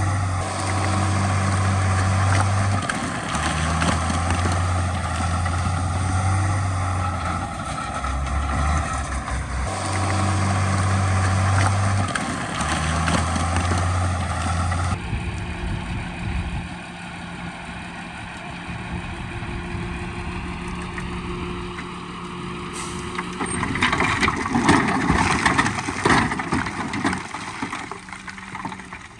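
Heavy diesel earthmoving machinery running, its deep engine note shifting in steps as the load changes. It then drops to a quieter steady drone, and a stretch of clattering noise takes over near the end.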